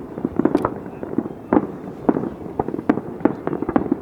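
Aerial fireworks bursting in a rapid, irregular string of sharp bangs, about three a second.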